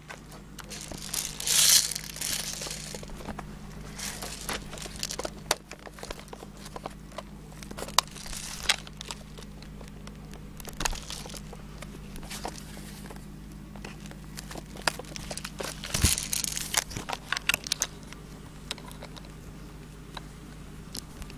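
Hands handling the airsoft gun and its battery packs while swapping batteries: irregular clicks and crinkling noises, with louder bursts near the start and about two-thirds of the way through. A steady low hum runs underneath.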